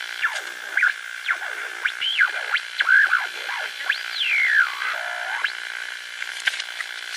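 Eerie electronic sound effects: whistling tones gliding up and down over a steady, thin band of static, with a longer falling sweep about four seconds in.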